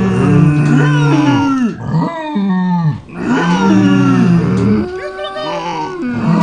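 Several farm animal calls overlapping, low drawn-out cries layered over one another, with a short lull about two seconds in.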